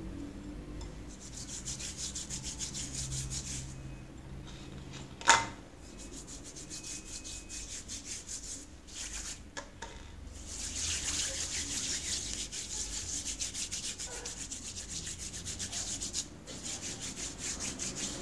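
Hands rubbing together with a gritty scrub of ground coffee, granulated sugar and lemon juice: a quick, even scrubbing with a few short pauses. One sharp tap about five seconds in.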